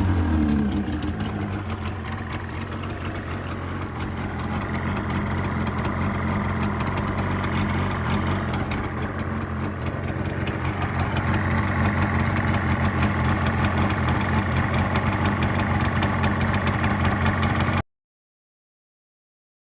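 Yamaha TDR250's two-stroke parallel-twin engine dropping back from a rev and then idling steadily. The sound cuts off abruptly near the end.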